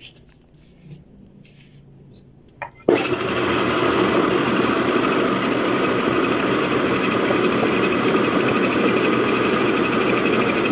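A ginger-grinding mill with a metal hopper starts abruptly about three seconds in and then runs with a loud, steady grinding noise as ginger is fed in to be ground into powder.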